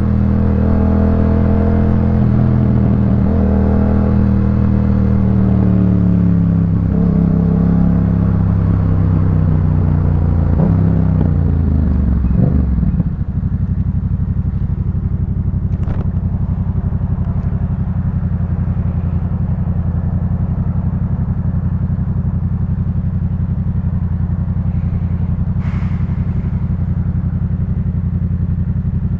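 Yamaha MT-07's 689 cc parallel-twin engine through a Jeskap K4 full aftermarket exhaust, its note falling as the bike slows down. About 13 seconds in it settles to a steady idle.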